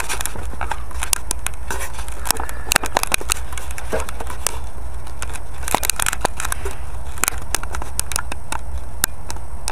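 Irregular clicks and crackles of a small camera and its mount shifting against a model seaplane's hull and the surfaces around it, over a steady low rumble.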